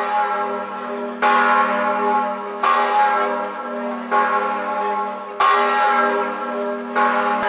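Church bell in the bell tower of Atri Cathedral tolling: one strike about every one and a half seconds, each ringing on into the next.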